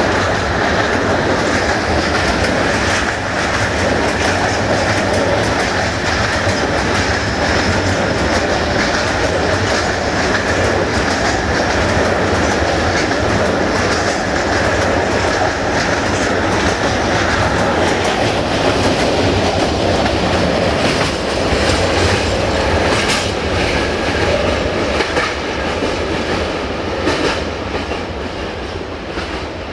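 Freight train of covered hopper wagons rolling past close by, its wheels clattering over the rail joints in a steady clickety-clack. The sound fades over the last few seconds as the end of the train draws away.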